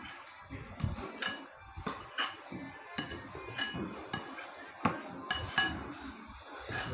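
Metal spoon clinking and scraping against a ceramic bowl while stirring chili sambal into fried noodles: about a dozen sharp clinks at an uneven pace of roughly two a second, the loudest a little past the middle.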